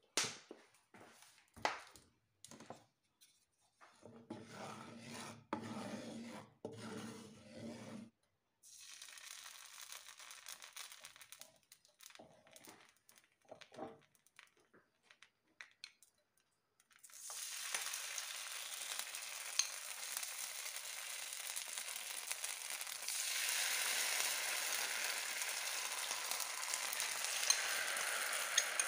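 Hot oil sizzling in a nonstick frying pan: a steady hiss that starts about halfway through and grows louder a few seconds later. Before it come a few clicks and knocks of cookware. Near the end batter with mussels and shrimp is poured into the oil.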